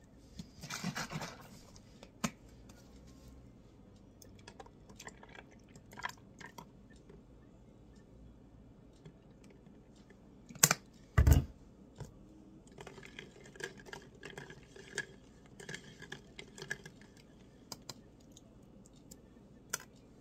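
Handling of a plastic coffee-creamer bottle and cup: light scattered clicks and taps, a short rustle about a second in, and two loud sharp snaps with a thump about halfway through as the bottle is opened.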